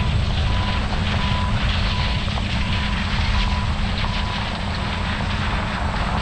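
Harvest machinery's diesel engine running steadily. A short high electronic beep repeats about every 0.7 seconds and fades out about five seconds in.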